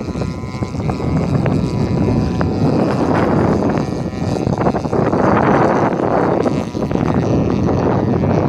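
Piper J3 Cub flying overhead with its engine running steadily, under loud wind buffeting on the microphone that swells twice in the middle.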